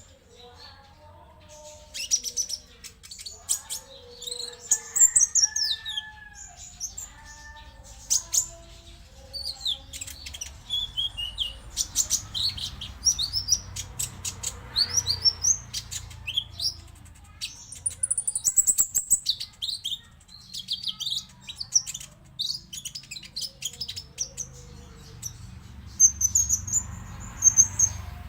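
Konin songbird singing and chattering: a busy run of rapid high chirps, trills and quick sweeping whistles, played as a lure to provoke caged konin into singing.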